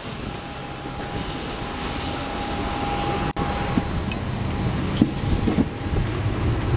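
Steady jet-aircraft noise on the airport apron, with a thin steady whine over the rumble, broken off abruptly about halfway; then a steady low hum inside the aircraft's forward cabin with a few light clicks and knocks.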